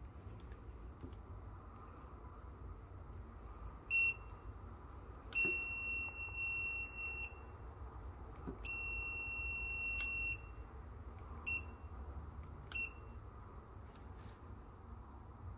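Aneng 681 digital multimeter's built-in beeper: one short high beep, then two long beeps of about two seconds each, then two more short beeps.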